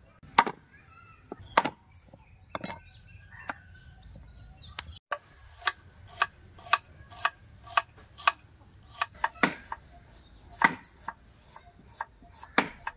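Knife blows on wooden boards. First a cleaver chops raw chicken on a wooden chopping board, with heavy chops about a second apart. Then a knife slices red onions on a wooden plank in a quicker run of sharp knocks, about two a second, with a few louder chops among them.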